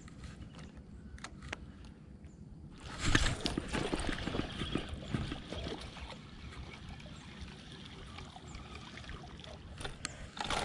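Water splashing, starting suddenly about three seconds in and dying away over about three seconds: a hooked fish striking and thrashing at the bait in shallow, reedy marsh water.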